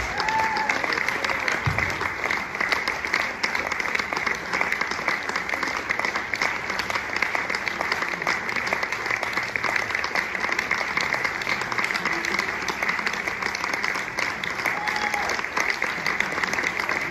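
Audience applauding steadily, a dense wash of many hands clapping, with a few short calls from the crowd.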